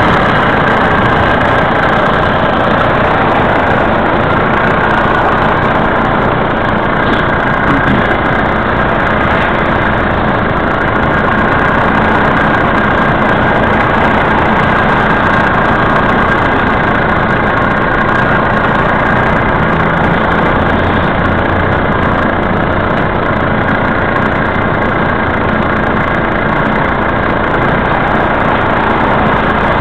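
Vehicle engine idling steadily while stopped in traffic at a light, with traffic noise around it.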